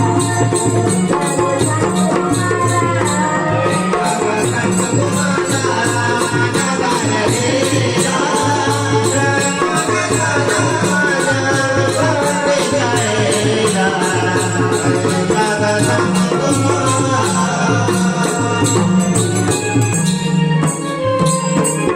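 Konkan naman folk music: a steady dholki drum beat with jingling percussion and a melody played over it.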